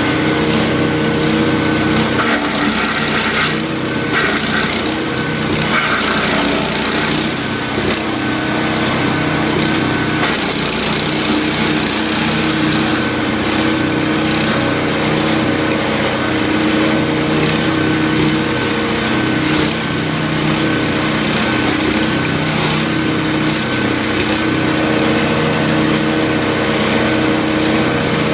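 13 hp wood chipper's engine running steadily at speed, with several stretches of louder, rougher chipping noise in the first half as wood is fed through.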